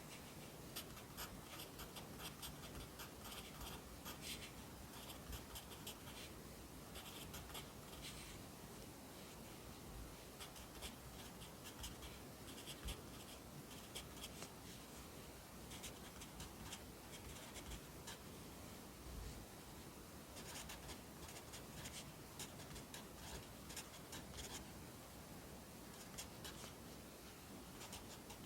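Pencil writing Korean characters on paper: faint runs of quick scratching strokes, with short pauses between words and a longer pause about two-thirds of the way through.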